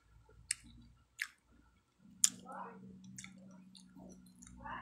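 A person chewing pieces of fresh pineapple: wet mouth smacks and clicks about once a second. A low steady hum comes in about halfway through.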